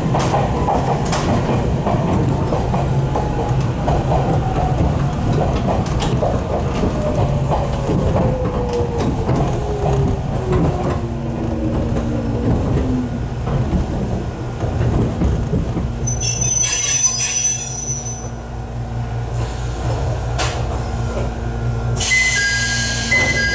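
Jōmō Electric Railway 700-series electric train (former Keio 3000 series) heard from inside the car, running on the rails with its motor whine falling steadily in pitch as it slows. After the whine fades it settles to a steady low hum. A short hiss comes about two-thirds of the way through, and a brighter hiss with high beeping tones comes near the end.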